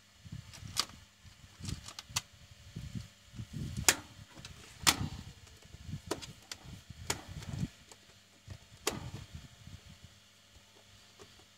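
Hard plastic WiFi router case being handled on a table while its screws are driven back in with a screwdriver: scattered sharp clicks and knocks, a few of them loud, over low rubbing and shuffling.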